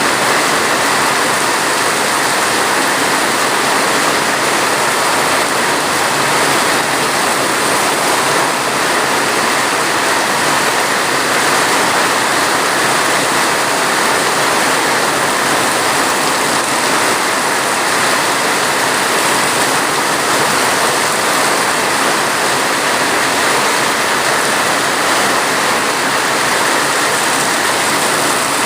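Steady heavy rain, a dense even hiss of falling water that never changes.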